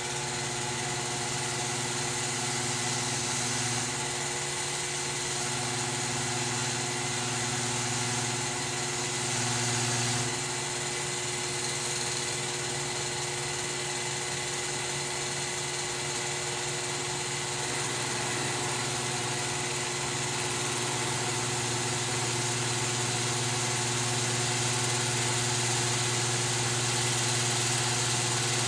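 Steady motor hum at a constant pitch, with small swells in level around four and ten seconds in.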